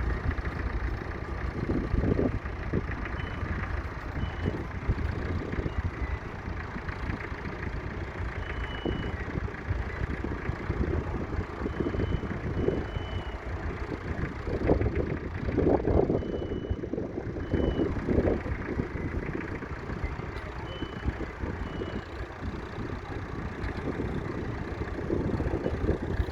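1964 Massey Ferguson 35X's three-cylinder diesel engine running steadily, growing louder for a few seconds a little past the middle.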